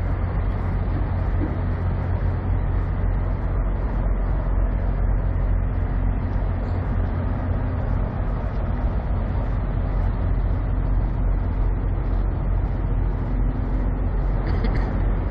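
Semi truck's diesel engine idling steadily, a constant low rumble.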